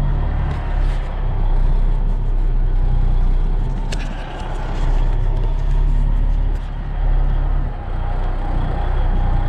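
Peterbilt heavy wrecker's diesel engine running steadily at low speed, heard from inside the cab, with a short sharp click about four seconds in.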